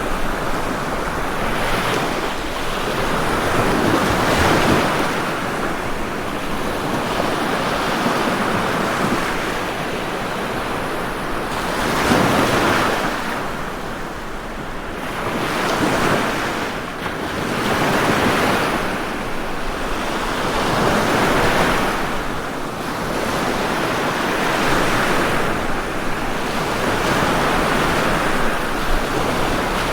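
Ocean waves breaking and washing on a shore, a continuous surf rush that swells and eases every few seconds.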